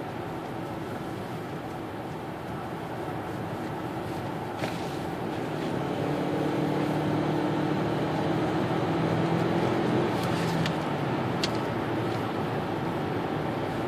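Turbocharged 2.0-litre four-cylinder engine of a 2013 Hyundai Santa Fe, heard from inside the cabin under hard acceleration. The engine note swells about five seconds in and climbs in pitch, then eases off about eleven seconds in.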